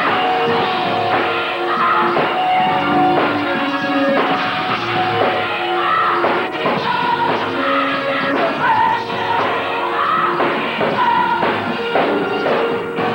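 Loud band music with singing: a voice sings over sustained instrument notes and a steady drum beat.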